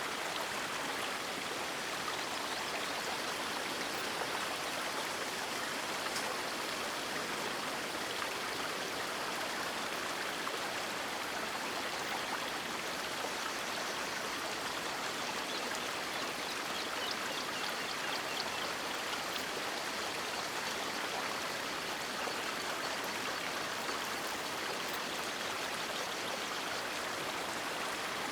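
River water rushing steadily with a constant, even wash of sound and faint small splashes, with no birdsong.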